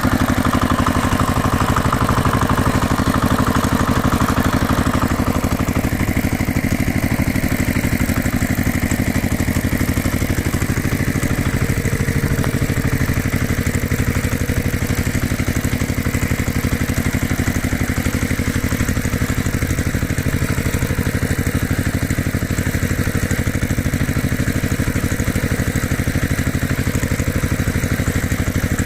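Engine running steadily at idle, with a fast, even chugging that stays level throughout; a higher part of the sound fades about five seconds in.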